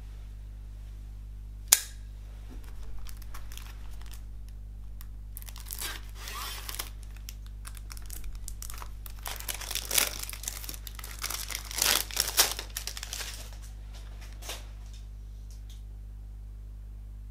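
Plastic shrink wrap on a CD jewel case crinkling and tearing as it is handled and peeled off, after a single sharp click about two seconds in. The crinkling is loudest about ten and twelve seconds in and stops a few seconds before the end, over a steady low hum.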